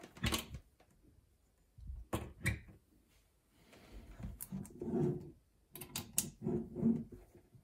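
Handling noises: a plug clicking into a wall socket, then a run of clicks and knocks as a Super 8 camera is moved and lifted on a wooden counter and a cable plug is fitted into it.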